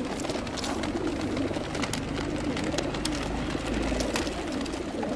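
A flock of racing pigeons cooing together in stacked transport baskets: a steady, overlapping murmur of coos, with scattered light clicks through it.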